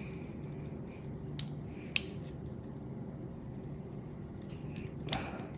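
Four light, sharp metallic clicks of small open-end wrenches being fitted and shifted on a brake hose's hex flare nut: two about a second apart early on, then two close together near the end.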